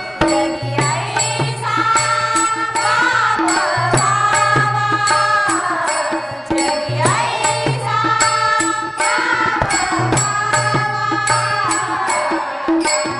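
Marathi devotional bhajan sung by a group of women, with harmonium accompaniment. Small brass hand cymbals (taal) are struck in a steady, even beat.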